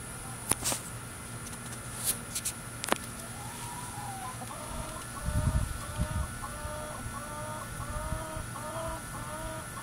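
Hen cackling her egg song after laying an egg: a run of repeated calls, about two a second, starting a few seconds in. A few sharp clicks come before it, and a short burst of low rumble about halfway through.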